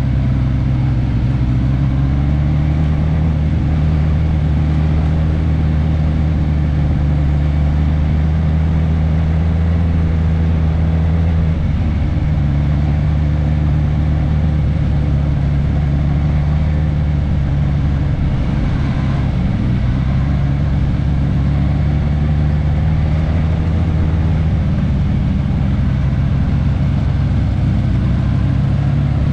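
Suzuki GSX-S1000S Katana's inline-four engine running at a steady, nearly constant pitch, heard onboard while riding; the note steps up slightly about two seconds in and dips briefly near the middle.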